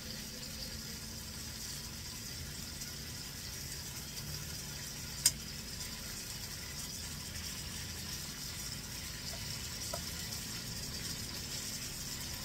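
Chicken frying in oil in a pan, with a steady sizzle and one sharp click a little over five seconds in.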